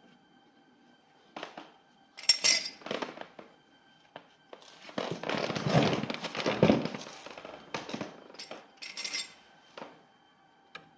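Hand work on metal parts: scattered clinks and knocks, with a longer stretch of rattling and scraping in the middle.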